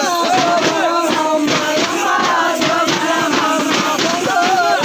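Tappeta gullu folk music: voices singing a chant-like tune over a steady beat of about three strikes a second from the dancers' tappeta drums, with bells jingling.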